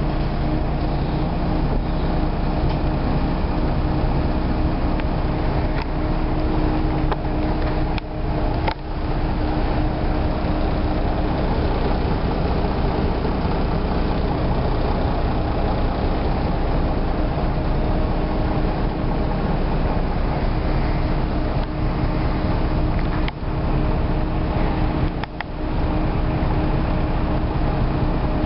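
Neoplan city bus driving, heard from inside the passenger cabin: the engine and ZF automatic gearbox running with a steady tone over the road rumble, broken by a few brief dips in the sound.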